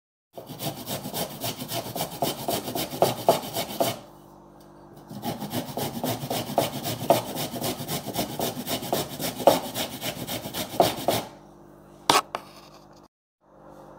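Carrot being grated on a handheld metal grater: rapid rasping strokes that pause for about a second around four seconds in, then run on until about eleven seconds in. A single short knock follows near the end.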